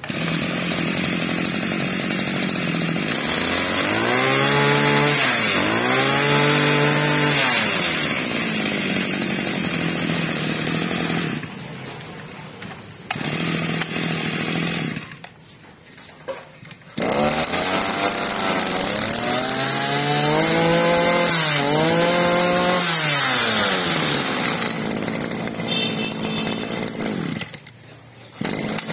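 Two small two-stroke brush cutter engines of about 20 and 22 cc run one after the other: the first catches right away, idles and is revved up and down twice, then cuts off; after a short burst and a pause the second runs, is revved up and down twice, and cuts off near the end.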